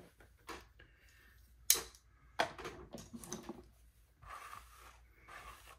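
A few sharp clicks and knocks of small objects being handled, the loudest about two seconds in, with soft rustling between.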